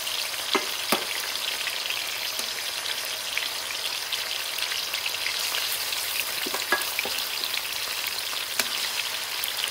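Marinated chicken pieces shallow-frying in hot oil and ghee in a karahi: a steady, crackling sizzle with a few sharp clicks scattered through it.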